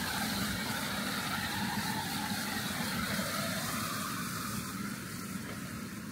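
A motor vehicle's engine running steadily, slowly fading away over the last couple of seconds.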